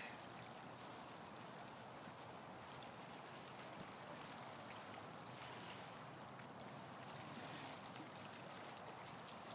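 Quiet, steady wash of small waves lapping against a rocky shoreline, with a few faint ticks.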